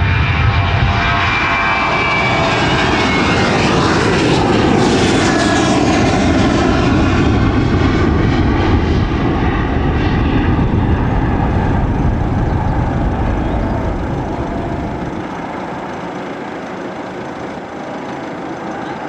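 Airliner's engines passing close by, loud, with whining tones sliding down in pitch as it goes past, then dying away over the last few seconds.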